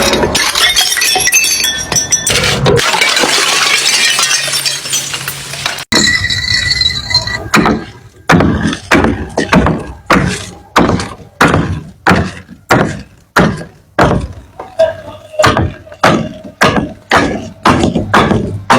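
Glass breaking: a dense crashing, shattering noise for the first several seconds, then a steady run of sharp impacts, about two a second, each with a short ringing tail.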